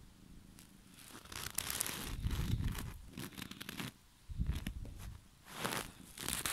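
Rustling and scraping of cat fur and a jacket sleeve close to the microphone, in irregular bursts with low bumps, as a cat rubs his head against the arm while being stroked.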